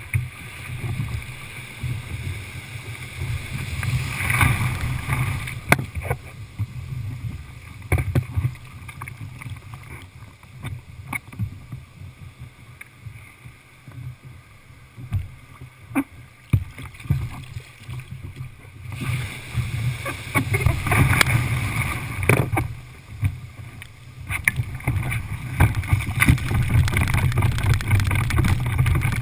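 Surf washing and splashing around a plastic sit-on-top kayak, with a steady low wind rumble on the microphone and scattered sharp knocks against the hull. The water noise grows louder in the last several seconds.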